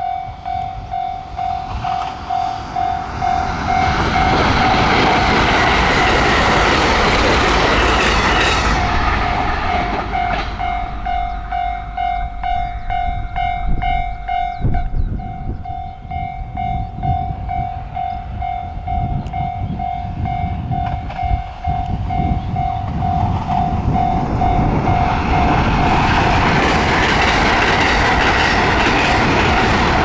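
Level-crossing warning bell ringing steadily at about two strikes a second, cutting off near the end, while a JR West limited express electric train runs past with rumbling wheel and rail noise and clickety-clack, loudest for several seconds near the start and again near the end.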